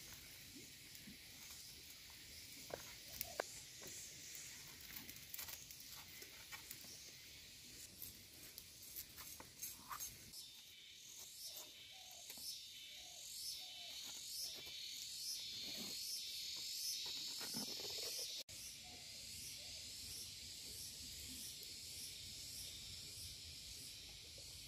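A heavy machete blade chopping a raw bamboo shoot in sharp, irregular strokes over roughly the first ten seconds, over a steady insect chorus with a pulsing high buzz.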